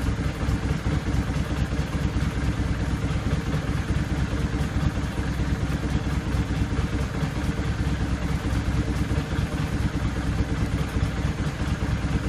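1999 Kawasaki Vulcan 800 Classic's V-twin engine idling steadily.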